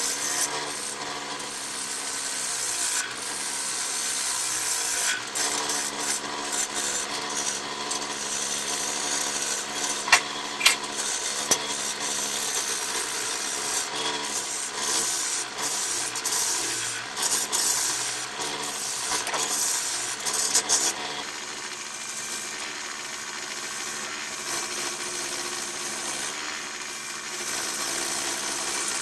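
Wood lathe spinning a large jacaranda bowl blank while a bowl gouge cuts it: a steady hiss of shavings over the hum of the spinning lathe, with a couple of sharp clicks about a third of the way in. The cutting sound thins about two-thirds of the way through.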